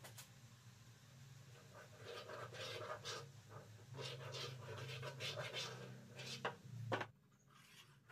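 A wooden beam compass's pencil scratching across plywood in a series of strokes as a circle is drawn, over a low steady hum. A sharp tap near the end, then quieter.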